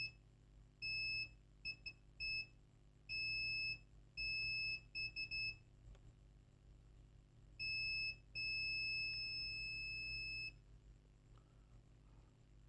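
A multimeter's continuity beeper sounds in broken, uneven beeps as the probes touch points on the hard drive's circuit board while checking for a short. Near the end it holds one steady beep about two seconds long.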